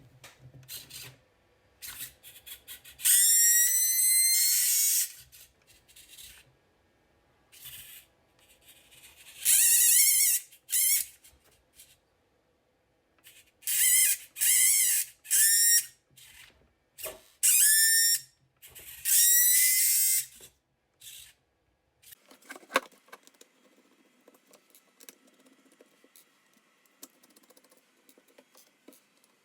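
WPL D12 RC truck's steering servo whining in repeated bursts of a second or two, the pitch bending within each burst, as the steering is worked back and forth. This is the strange noise the servo makes when turning left, which the owner suspects is a defect.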